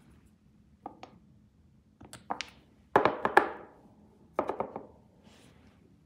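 Clicks and taps of small nail-art tools and bottles being handled on a tabletop: a couple of light clicks, then two short bursts of clattering taps about three seconds in and again about four and a half seconds in.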